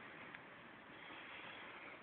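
Near silence: room tone, with one faint click about a third of a second in.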